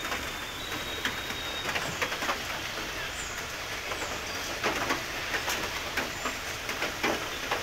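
Steady rush of running water with irregular splashes and clicks, several clustered about five seconds in and again near the end.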